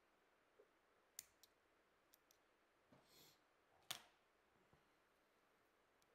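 Near silence with a few faint clicks and light handling noise from fly-tying at the vise: a brief soft rustle about three seconds in, then a sharper click just after.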